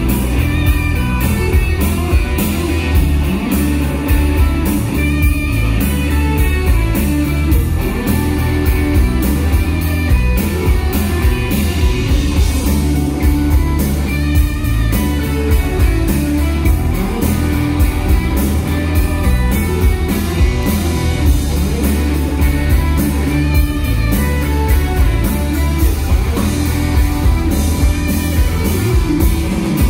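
A rock band playing live: electric guitars, bass guitar and drum kit, with the drums keeping a steady beat.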